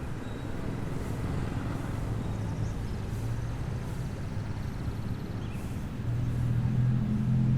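City street traffic: a steady low rumble of passing vehicles. Near the end, one engine's hum grows louder as a vehicle passes close.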